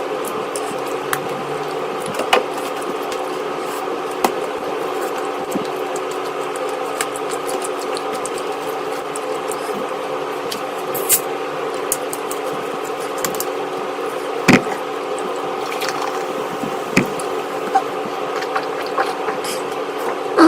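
Wet squishing and smacking of a person eating, with sharp clicks every second or two over a steady droning hum.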